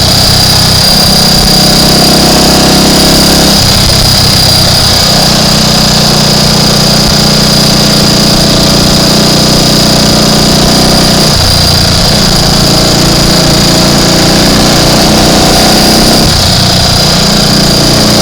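Triumph Tiger Cub's single-cylinder four-stroke engine running steadily under way. Its note shifts a few times as engine speed changes.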